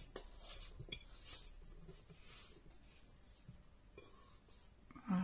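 Faint soft scraping and rubbing as risen brioche dough is worked out of a metal mixing bowl by hand, with a light knock at the start; it dies away to near quiet after about two seconds.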